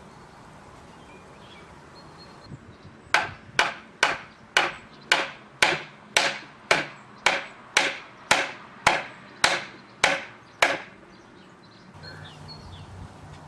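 Hammer blows on wood, about fifteen strikes at a steady pace of roughly two a second, starting a few seconds in and stopping a few seconds before the end.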